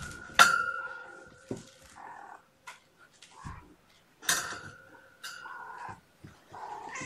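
Kittens mewing and scuffling at play, with two sharp knocks that ring on briefly, about half a second in and again about four seconds in.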